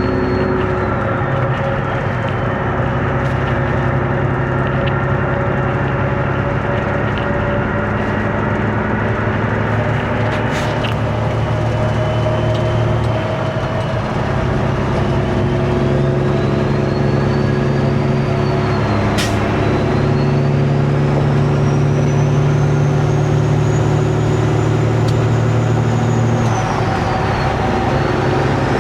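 Peterbilt 389 glider semi truck's diesel engine running at highway speed, a steady drone with road noise and a faint high whine that drifts up and down. The drone briefly changes twice, and there is one sharp click about two-thirds of the way through.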